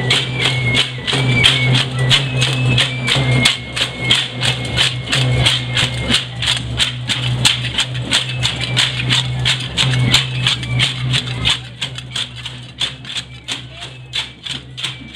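Festive dance music from costumed procession dancers: rattles shaken in a steady beat of about five strokes a second over a high stepping melody and a low steady hum. It grows quieter after about eleven seconds as the troupe moves away.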